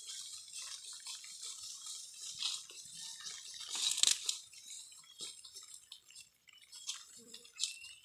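Scattered crunching and rustling of grass as water buffalo and people walk and graze through a field, loudest about four seconds in.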